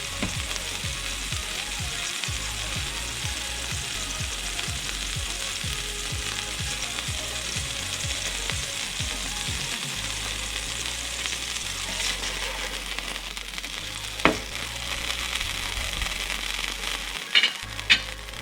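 Wagyu beef smash burger patty frying on a hot pan, a steady sizzle. A sharp click about two-thirds of the way through and two more near the end, like a utensil knocking.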